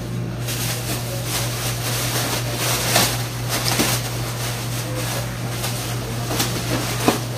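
Thin plastic bag crinkling and rustling as it is handled and knotted shut, with a few sharper crackles, over a steady low hum.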